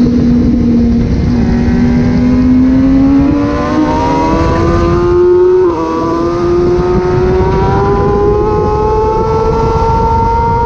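Kawasaki ZX636 inline-four engine running at high revs under hard acceleration, its pitch climbing steadily. There is a short dip about six seconds in, then it climbs again.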